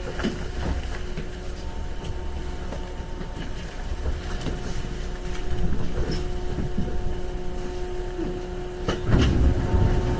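Cabin running noise of a 415 series 1500 subseries electric multiple unit: a steady low rumble with a few sharp clicks from the wheels and track, swelling louder about nine seconds in.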